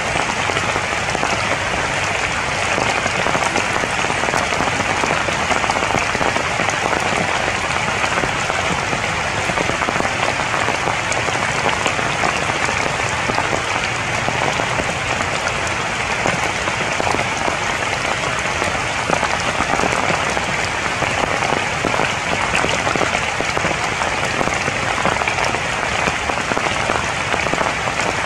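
Steady rain falling on broad tree leaves, a dense, even hiss of drops that keeps up without a break.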